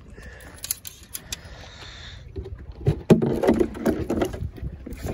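A catfish being handled into a plastic cooler: a few light clicks, then a loud clunk about three seconds in, followed by knocking and rattling as the cooler lid is held open and the fish on its gripper goes in.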